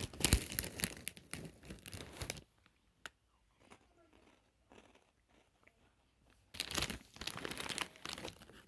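Crinkling, rustling noise for the first couple of seconds and again for about two seconds near the end, with faint scattered clicks in between.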